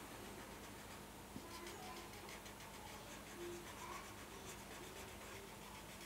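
Felt-tip marker scribbling and dabbing on paper in many quick short strokes, faint, with a few faint short squeaks among them.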